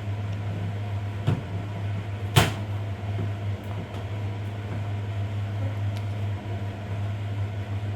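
A steady low hum with two short knocks, a lighter one about a second in and a sharper, louder one a second later.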